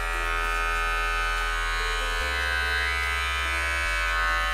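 Wahl Cordless Super Taper hair clipper running unloaded in the hand, a steady electric buzz.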